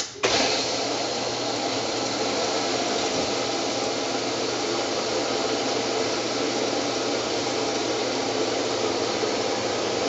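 Water rushing steadily through a Kenmore HE5T front-load washer's dual-solenoid inlet valve and fill tube into the dispenser on a warm fill. It starts abruptly just after a click as the valve opens.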